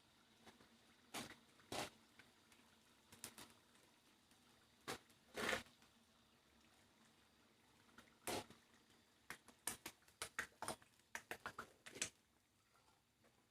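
Faint, scattered clicks and taps of kitchen things being handled, with a quick run of small clicks about ten seconds in.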